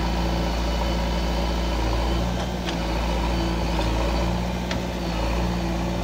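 Diesel engine of a JCB 3DX backhoe loader idling steadily, with two faint clicks in the middle.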